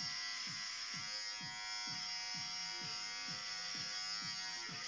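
Electric hair clippers buzzing steadily as they are run over a head, cutting the hair down to stubble.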